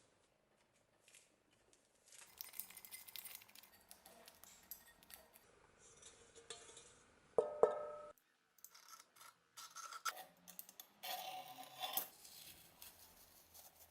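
Faint scraping and small clicks of metal being handled, with one brief metallic ringing clink about seven and a half seconds in.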